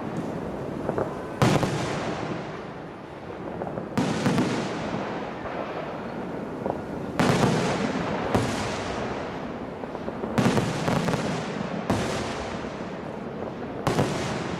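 Display fireworks: aerial shells bursting in about seven heavy bangs a second or two apart, each trailing off in a long echo.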